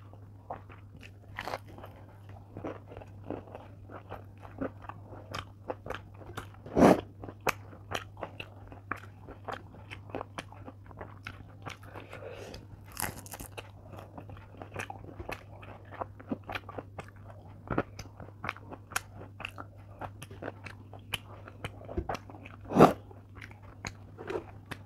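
Chewing and crunching of fried fish and rice, picked up close by a clip-on microphone, with many small wet mouth clicks and two louder crunching bites, about seven seconds in and near the end.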